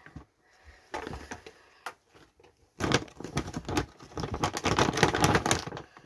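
Rustling and crackling handling noises with rapid clicks, faint at first and then loud and dense from about three seconds in.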